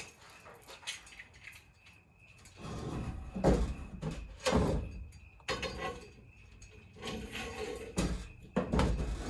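Metal handling noises as a chain is worked against a steel bar: a series of irregular clanks, knocks and scrapes, starting after a couple of quiet seconds.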